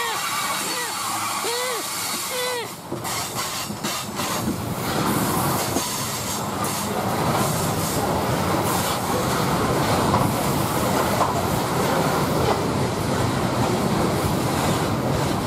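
Loaded coal cars of a freight train rolling past: a steady rumble with the clatter of wheels over the rails, growing fuller a few seconds in.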